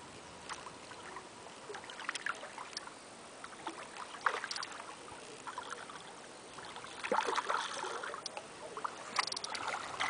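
Water splashing as a hooked fish thrashes at the surface of a pond while being played on the line: scattered small splashes, with a louder flurry of splashing near the end.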